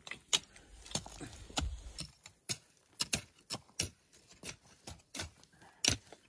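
Short-handled hand hoes chopping into stony soil: irregular sharp clinks of the metal blades striking stones and earth, about two to three a second, from two people working at once.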